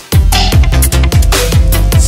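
Electronic background music with a fast drum beat and deep bass notes that slide downward.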